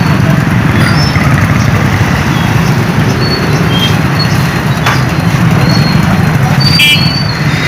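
Steady, loud vehicle noise, with a brief high tonal sound near the end.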